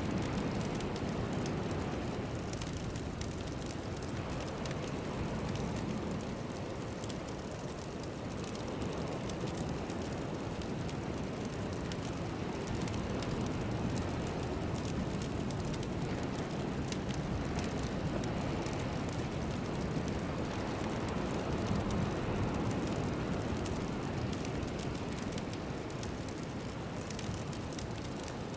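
Steady low rushing noise that rises and falls gently, with faint crackling over it: an ambient noise-bed soundscape, with no melody or clear tones.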